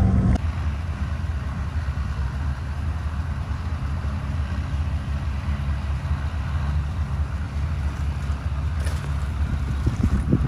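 Tractor engine running steadily as it pushes a boat on its trailer out into the surf for a beach launch: a low, even drone.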